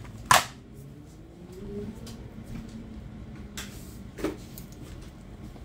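A sharp click or knock just after the start, then a couple of fainter clicks over a low steady hum, typical of a radio or phone being handled.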